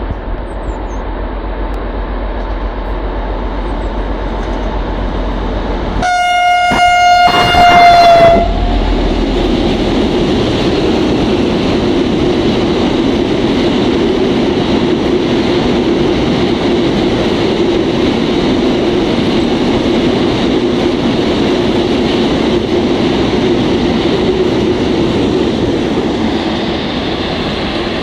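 BR 232 'Ludmiła' diesel locomotive drawing near with a freight train of tank wagons, getting louder, then sounding one horn blast about two seconds long that dips slightly in pitch as it ends. After the horn, the tank wagons roll steadily past on the rails with a clickety-clack.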